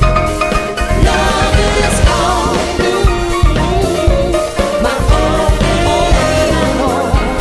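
Music: a live soul-disco pop song, with a female singer over a band with bass and a steady drum beat.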